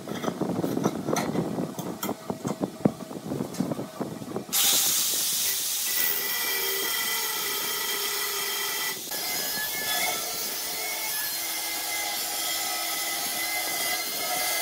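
A few irregular clicks and knocks as the steel brake disc is handled and clamped on the bench, then an angle grinder with a cut-off wheel starts about four and a half seconds in and cuts into the steel motorcycle brake disc. The cutting is a loud, steady grinding noise with several high whining tones over it, dipping briefly once about halfway through.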